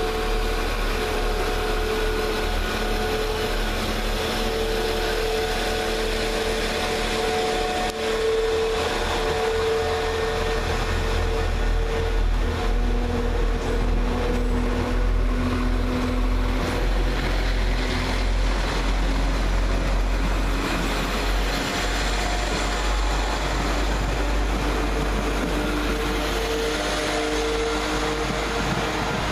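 Two coupled Class 172 Turbostar diesel multiple units pulling out of the station past the platform. Their underfloor diesel engines run with a steady low rumble and a whine that shifts in pitch as the train moves off.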